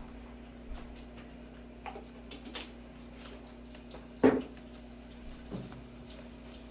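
Faint stovetop cooking noise under a steady low hum, with a few light clicks and knocks, the sharpest one about four seconds in.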